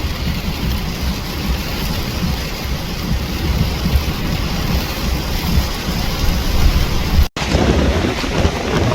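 Hurricane-force wind buffeting the microphone as a loud, rumbling rush over the noise of surf and rain. About seven seconds in, the sound drops out for an instant at a cut.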